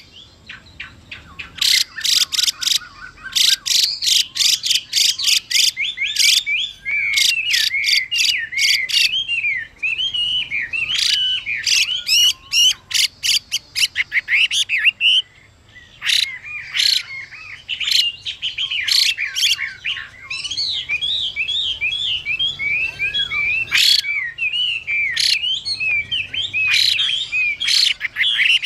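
Chinese hwamei singing a long, varied song: rapid runs of sharp repeated notes alternate with fluid warbling phrases, with a couple of short breaks.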